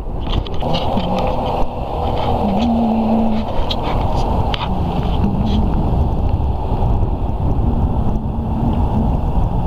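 Strong wind buffeting the microphone: a loud, steady rumble, with a faint wavering hum underneath.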